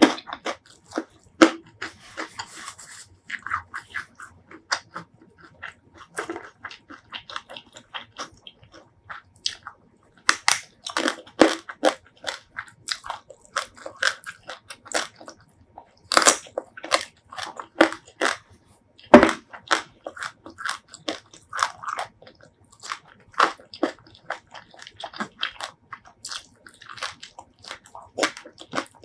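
Close-miked chewing and crunching of mouthfuls of spicy shrimp salad with rice and raw vegetables, eaten by hand. An irregular run of sharp crunches, with one especially loud bite about nineteen seconds in.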